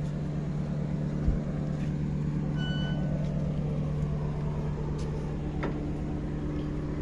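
Car engine idling steadily. Over it come a low thump about a second in, a brief high squeak near three seconds, and a couple of light knocks as a black metal gate is pushed shut by hand.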